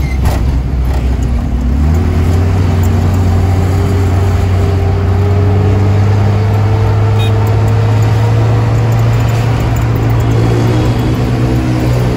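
Mitsubishi Colt L300 minibus heard from inside the cabin while under way, over a steady road rumble. The engine note steps up about two seconds in, then climbs slowly and evenly as the van keeps accelerating.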